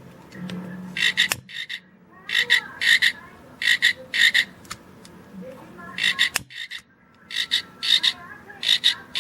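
Electronic frog-croak sound effect from a frog-shaped novelty butane lighter, played as short pulsed croaks in groups of two or three. There is a sharp click about six and a half seconds in.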